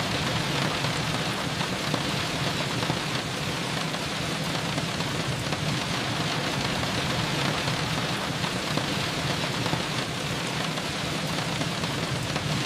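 Steady rainfall, an even rushing hiss of rain falling outside a window, with no single drops or events standing out.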